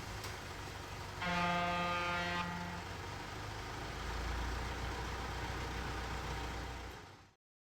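A vehicle horn sounds once about a second in, held for just over a second, over a steady low rumble; the sound cuts off shortly before the end.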